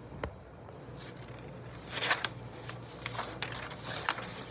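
Handling noise as a phone is moved about: rustling, a scrape about two seconds in, and a few sharp clicks over a low steady hum.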